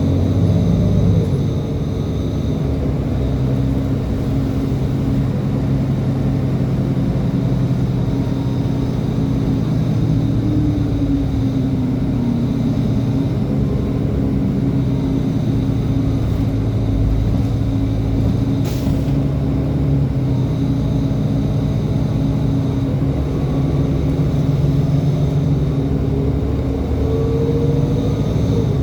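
Transit bus engine running under way, its pitch sliding down and back up as the bus drives, with one brief sharp hiss about two-thirds of the way through.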